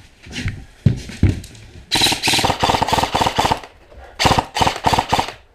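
Airsoft electric gun (AEG) firing two bursts of rapid full-auto fire, the first about a second and a half long and the second about a second long, after a few dull thumps.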